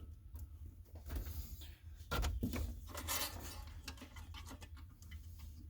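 Faint rustling and small clicks of a thin electrical wire being twisted and worked by hand, with the busiest handling about two seconds in.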